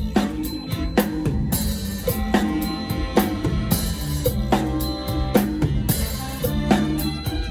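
Mor lam band playing a lam phloen groove, the drum kit prominent with regular kick and snare hits over a bass line.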